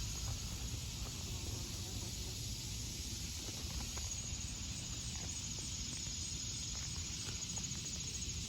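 Outdoor central air-conditioner condensers running: a steady rush of fan air over a low hum. A thin high steady whine joins about halfway through.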